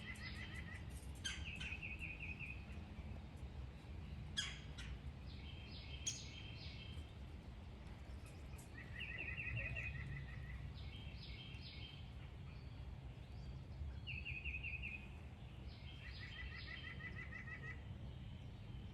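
Birds calling: a series of short, rapid trills, each about a second long, one every two to three seconds, over a faint low background rumble.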